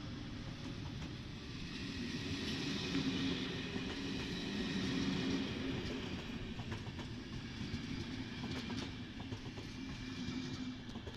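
Express train's blue-and-white passenger coaches rolling past at close range: a steady rumble of wheels on rail, with scattered sharp clicks over the rail joints in the middle. The sound eases off near the end as the last coach goes by.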